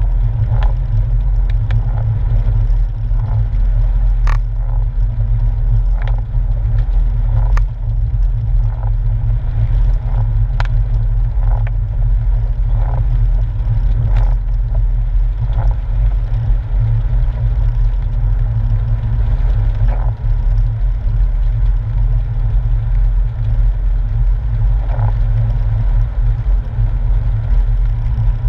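Porsche 997's flat-six engine running at a steady pace, heard from inside the cabin as a deep, constant drone mixed with tyre and road rumble on a wet road. Short clicks and knocks come every second or two.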